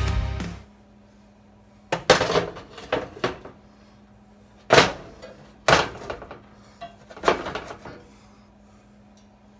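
Metal burner grates of a gas stove being set back onto the stovetop: a string of sharp clanks and short scrapes, about eight in all, bunched between about two and eight seconds in. Background music fades out at the very start.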